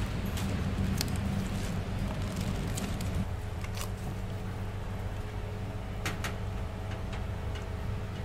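Steady low machine-like hum with a handful of sharp clicks and light knocks scattered through; part of the hum drops out about three seconds in.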